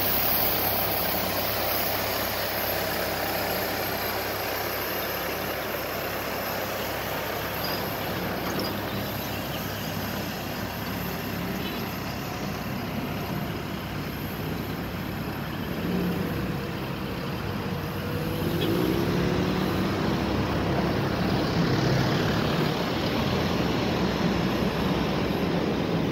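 Borum Master thermoplastic line marking machine running as it lays a road line, with road traffic around it. The noise swells about eighteen seconds in.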